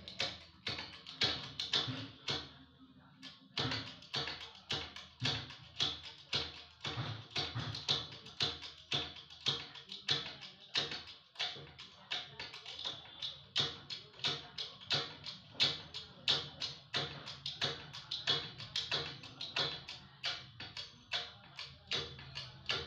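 Hand-pumped hydraulic bottle jack clicking at about two to three clicks a second as its handle is worked to press a submersible motor's stator coil into its shell, with a brief pause about three seconds in.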